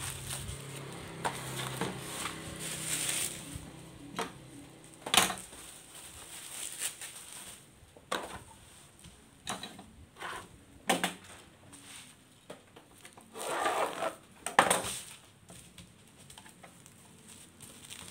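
Plastic bubble wrap rustling and crinkling as it is handled, spread out and folded around small toy parts, with scattered sharp knocks and clicks of objects set down on a wooden tabletop.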